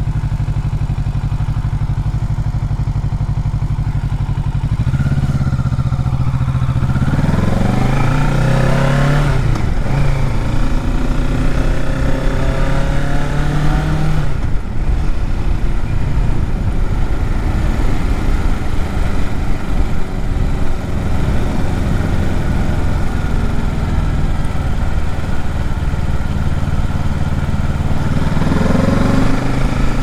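Kawasaki Ninja 650's parallel-twin engine idling steadily, then pulling away about five seconds in and accelerating up through the gears with rising pitch, a brief dip at a shift, cruising at steady revs, and accelerating again near the end.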